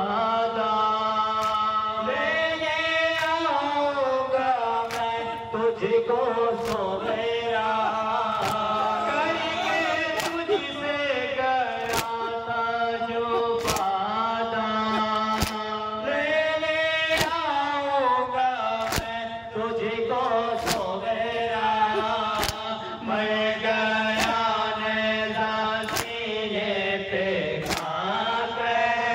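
Male voices singing a nauha, a Shia mourning lament, in unison, with a sharp strike about every second and three-quarters from the mourners' rhythmic chest-beating (matam) keeping time.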